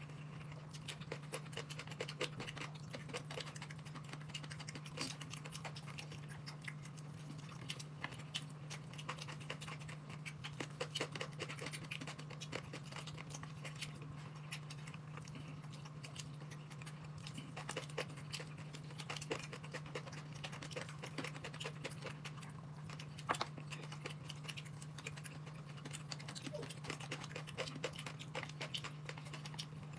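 People eating: chewing, with many small irregular clicks and scratches of utensils against bowls, over a steady low hum.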